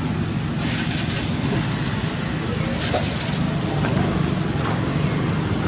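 Outdoor wind noise rumbling on the microphone, with dry leaf litter crackling and crunching. A short high thin tone comes in near the end.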